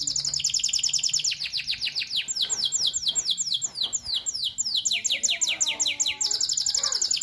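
Male domestic canary singing nonstop: one fast trill after another, each made of rapidly repeated falling notes, with the pace of the notes changing from trill to trill.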